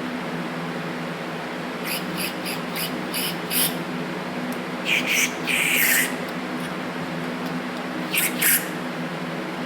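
Compressed-air blow gun on a shop air hose giving a series of short hissing blasts, blowing out the passages of carburetor parts being cleaned. One blast about five to six seconds in is longer than the rest.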